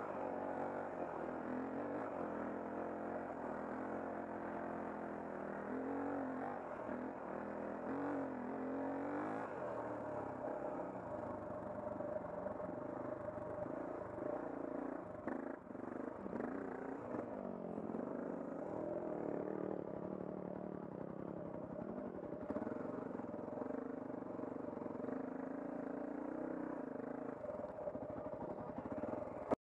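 Dirt bike engine running under the rider at low to moderate revs, the pitch rising and falling as the throttle is worked over rough trail, with a brief dip about halfway through.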